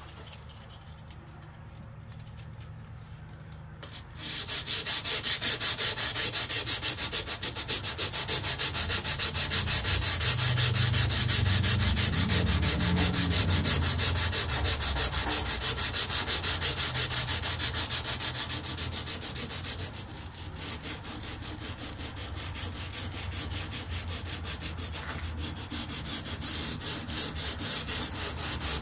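Sandpaper rubbed by hand along a steel KA-BAR knife blade in quick, even back-and-forth strokes, wearing the black finish off the steel. The sanding starts about four seconds in and gets quieter after about twenty seconds.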